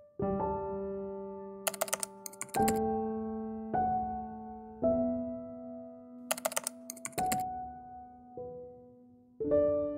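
Background music of slow, sustained piano chords changing about once a second, with two short bursts of keyboard-typing clicks, about two seconds in and again about six seconds in.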